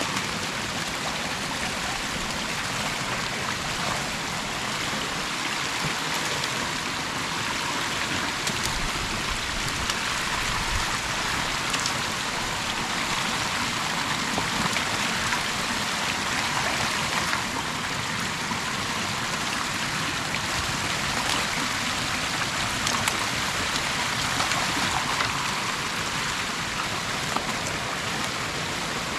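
Creek water rushing steadily through an opening torn in a beaver dam, an even hiss with a few faint ticks.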